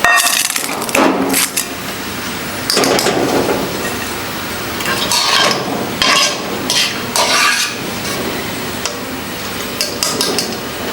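Metal spoon scraping, clinking and knocking against a cooking pot as browned onions are lifted out of hot oil, with the oil sizzling steadily underneath. The clinks come in scattered strikes, about eight in all.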